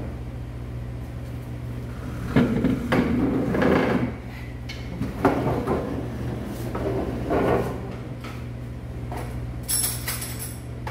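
Wooden restaurant chairs being moved on a concrete floor: several irregular scrapes and knocks, with a brief high rattle near the end, over a steady low hum.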